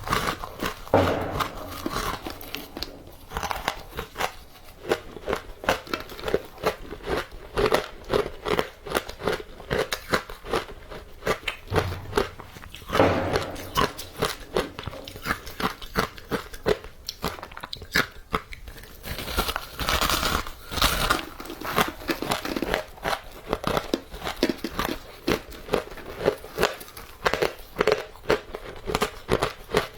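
Close-miked biting and chewing of frozen matcha ice: a dense run of rapid crunches and crackles, with a few harder bites about a second in, near the middle and about two-thirds through.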